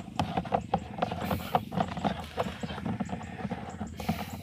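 Hands scrubbing a metal air filter grille in a basin of soapy water: sloshing with irregular light knocks and clicks as the metal moves against the basin.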